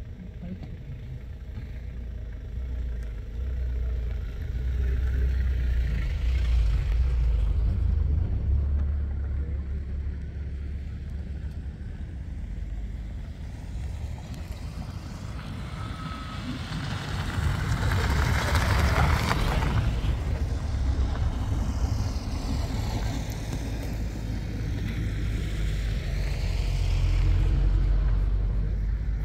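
Low rumble of a safari vehicle's engine running, swelling louder and softer several times, with a louder rushing stretch a little past the middle.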